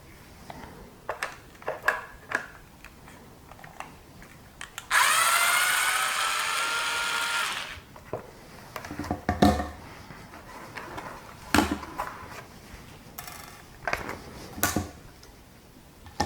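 A power drill runs steadily for under three seconds about five seconds in, loud over everything else. Before and after it come scattered clicks and several sharp knocks of tools and small plastic parts being handled and set down.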